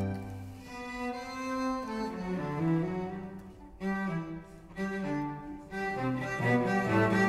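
A string quartet on period instruments plays a classical-era Allegro. A loud chord fades at the start into a softer passage of moving notes in the lower strings, with the cello prominent, and the sound swells again near the end.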